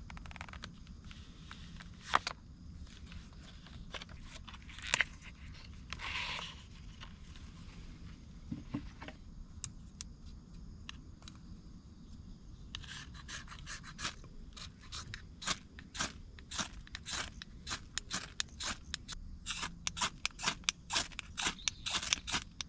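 Small wood campfire crackling as the kindling catches. At first there are sparse snaps and a brief hiss, then from about halfway through the crackles come thick and fast and grow louder.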